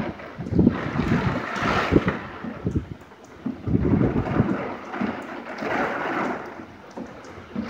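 Thunderstorm: rain falling and wind gusting against the microphone, in rumbling swells that rise and ease several times.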